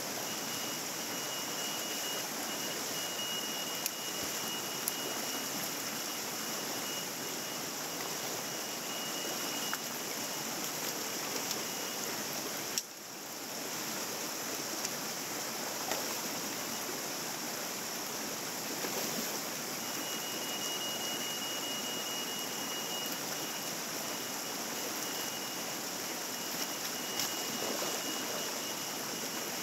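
Mountain stream rushing steadily over rocks, with a thin steady high tone that comes and goes. The rush dips briefly about halfway through.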